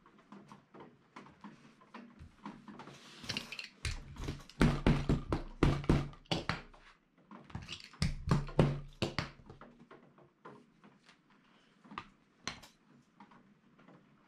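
A hammer beating down a folded fabric edge against a work table to set the crease: two runs of quick blows, a few seconds in and again about halfway through, with lighter taps and fabric rustling between.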